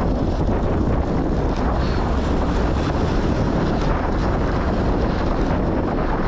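Steady, heavy wind buffeting on a GoPro action camera's microphone from riding a road bike at speed. The furniture-pad windscreens on the camera's mics are badly stuck on, so more wind noise comes through than it should.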